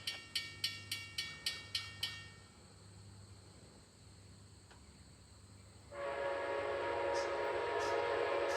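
A grade-crossing bell dings about three times a second, then stops about two seconds in. About six seconds in, the air horn of the approaching Amtrak heritage locomotive 130 sounds a long, loud chord blast for the crossing.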